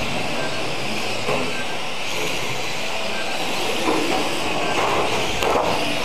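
Radio-controlled mini cars racing on a carpet track: a steady whir of small motors and tyres on carpet, with a few light knocks near the end.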